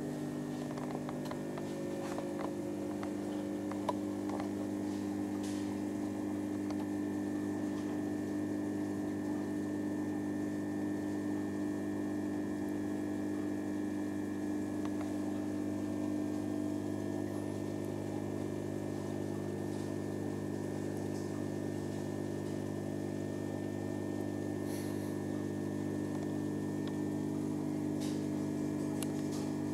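Aquarium pump's steady electric hum, a low buzz of several tones with a faint high whine above it.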